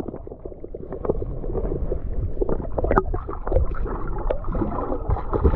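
Muffled underwater sound from a submerged action camera: low, gurgling water noise with scattered clicks and knocks, one louder click about halfway through.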